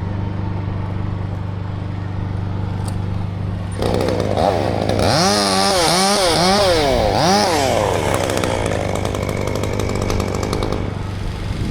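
Chainsaw comes in about four seconds in and runs hard, its pitch rising and falling again and again as it is revved, over the steady hum of an engine running throughout. The saw drops back down near the end.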